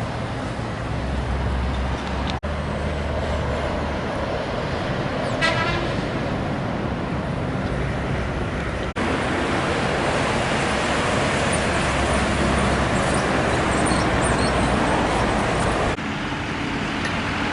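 Road traffic and vehicle engine noise, with a short horn toot about five and a half seconds in. The sound cuts abruptly twice and is louder in the middle part.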